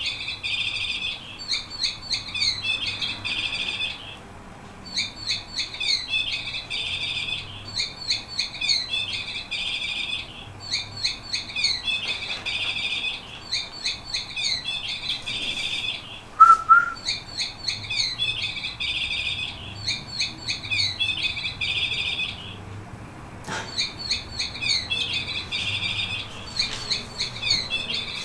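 Yellow domestic canary singing: repeated phrases of quick rising and falling whistled notes and trills, in bouts a few seconds long with short pauses between. Just past halfway a single short, lower chirp stands out as the loudest sound.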